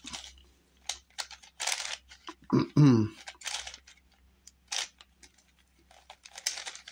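A plastic twisty puzzle, the Shengshou Crazy Magic Tower V2, being scrambled by hand: short bursts of clicking and scraping as its layers are turned, about half a dozen times. A brief sound of the man's voice comes about two and a half seconds in.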